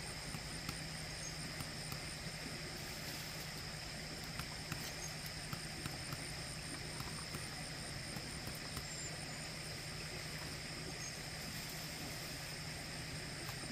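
Steady outdoor background: a constant high-pitched drone over an even hiss and low hum, with scattered faint ticks.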